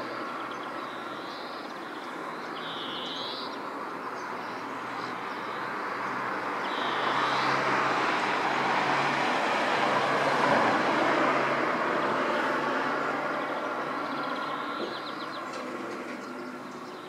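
A passing vehicle's noise with a low hum, slowly swelling to its loudest about two-thirds of the way through, then fading. Short high bird calls come every second or two over it.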